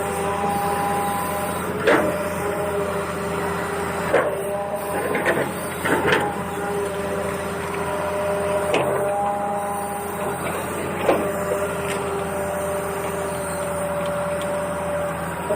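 Small electric gear motors of a toy RC excavator whining, the pitch stepping up and down as different functions run, with sharp plastic clacks every few seconds.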